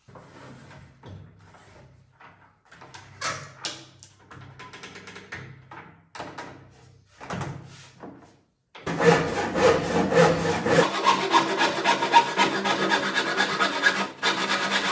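Quiet knocks and rubbing as pieces of wood are handled, then about nine seconds in a hand saw starts cutting through wooden panel, a loud continuous rasping cut with one brief pause near the end.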